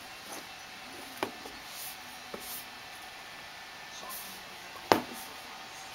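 Ragdoll cat tussling with a toy mouse on a wooden floor: a few scattered knocks and taps against the floorboards, the sharpest about five seconds in, over quiet room hiss.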